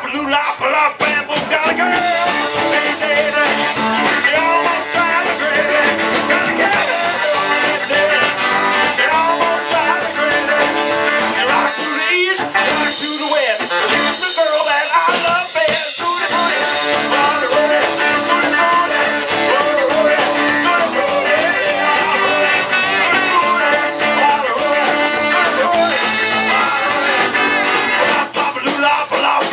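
A live band playing: saxophone, electric guitars and a drum kit, loud and steady, the low end thinning briefly twice, about twelve and fifteen seconds in.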